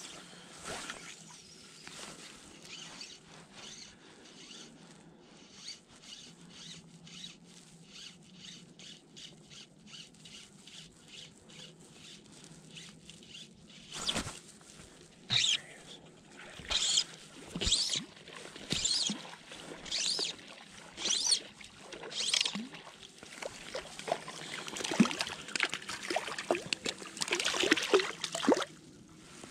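Faint, evenly spaced ticking through the first half, then a hooked trout splashing at the surface close by. The splashes come in short bursts about once a second, then run almost without a break near the end as the fish thrashes while it is landed.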